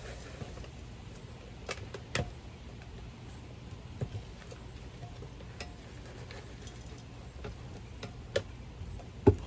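Scattered light knocks and taps of soil being backfilled by hand into a large plant pot, about five in all, the loudest near the end, over a low steady hum.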